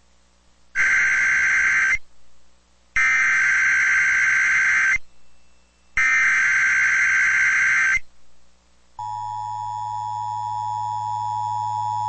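EAS SAME header on NOAA Weather Radio: three loud bursts of screechy digital data, separated by short silences, followed about a second later by the steady attention tone, which holds for about four seconds.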